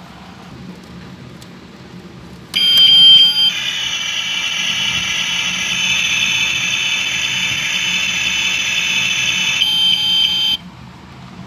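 A toy kitchen stove's built-in electronic sound effect, played through its small speaker. A beep about two and a half seconds in, then a steady electronic hiss like cooking for about six seconds, then a second beep before it cuts off.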